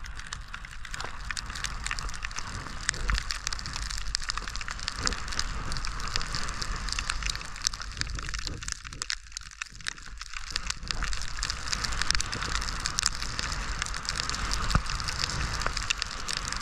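Skis hissing and crackling through deep powder snow as the skier descends, with a steady low rumble underneath.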